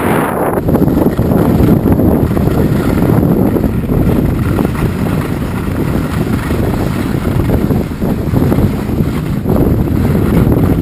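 Wind rushing over the microphone of a camera carried by a skier going downhill, a loud, steady low rumble, mixed with the sound of skis sliding over packed snow.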